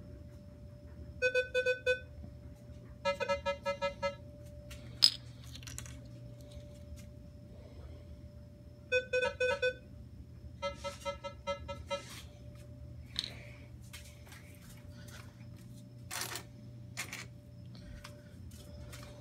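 Minelab Equinox metal detector giving its target tone as a bottle cap is passed over the search coil: four bursts of rapid, choppy beeping, the response by which the detector identifies a bottle cap. A few sharp handling clicks come in between.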